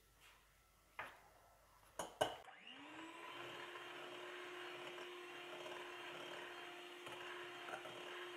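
A few short clicks, then an electric hand mixer starts about two and a half seconds in, rising quickly to speed, and runs steadily with its beaters whisking a thin egg-and-sugar sponge batter.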